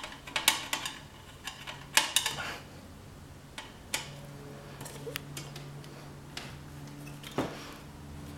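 Scattered light clicks and knocks of small metal and plastic printer parts being handled and worked loose, with the loudest clatter about two seconds in.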